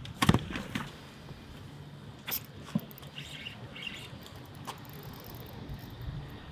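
A plastic cooler lid handled with a few sharp knocks and clunks in the first second, followed by scattered light clicks and a few faint chirps.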